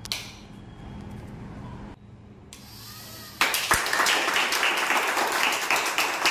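A click near the start and a low steady hum that stops about two seconds in, then, a little past halfway, a group of people breaks into applause that carries on.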